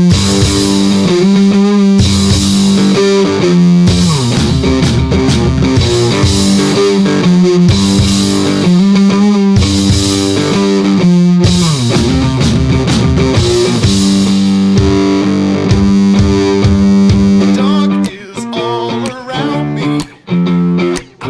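Background rock music with electric guitar. It turns quieter and choppier about eighteen seconds in.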